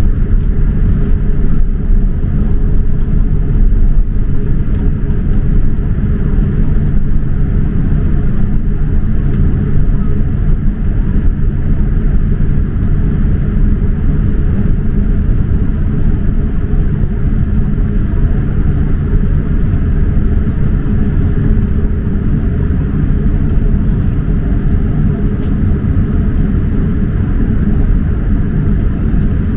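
Cabin noise of a Boeing 787-9 taxiing: a steady low rumble from its Rolls-Royce Trent 1000 engines at idle and the airframe rolling, with a faint high steady whine above it.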